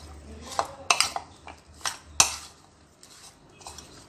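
Metal spoon stirring sliced potato peels in a ceramic bowl, clinking and scraping against the bowl in irregular knocks, the loudest a little after two seconds in.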